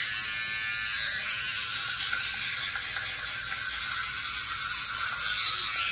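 A child's battery-powered electric toothbrush buzzing steadily while it brushes teeth.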